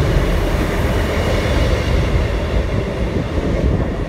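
East Midlands Railway Class 158 diesel multiple unit running at the platform: the steady rumble of its underfloor diesel engines and its wheels on the rails, growing a little quieter over the second half.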